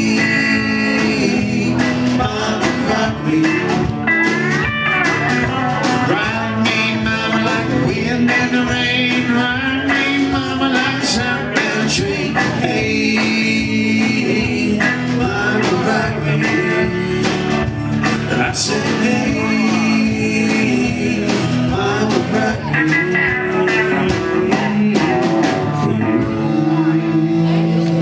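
Live country-rock band playing: electric guitars, bass and a drum kit, loud and steady. Near the end the band settles onto a held chord.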